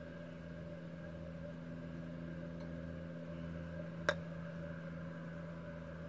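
An iron's clubface strikes a golf ball on a short chip shot: one crisp click about four seconds in, over a steady mechanical hum.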